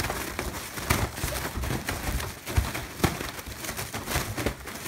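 Foil (Mylar) balloons crinkling and rustling as they are swung about, with irregular knocks and thumps as they bump together and into things.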